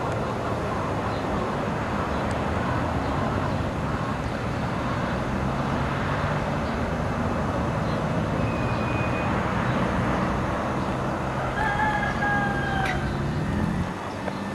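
Steady outdoor traffic noise, with a vehicle's engine running low underneath through the second half. About twelve seconds in comes a short call of about a second, one tone falling slightly in pitch.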